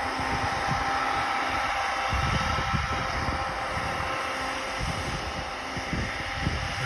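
Wind buffeting the microphone over the steady drone of a cog railway locomotive's engine as it climbs the mountain track. No horn sounds.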